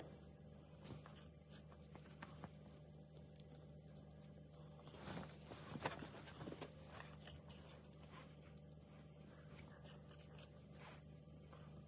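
Faint handling noises: scattered small clicks and scrapes as broadhead parts are handled, thickest about five to seven seconds in, over a steady low hum.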